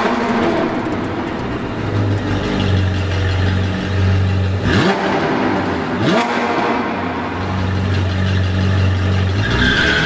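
Sports car engine revving: the pitch rises sharply near the start and twice more about five and six seconds in, over a steady low drone.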